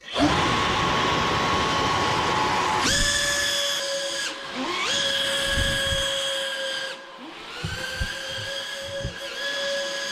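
Brushless electric motors and propellers of a small RC hovercraft whining at a high pitch over a hiss of rushing air. The throttle is opened and eased several times, and the whine glides up in pitch each time the motors spool up.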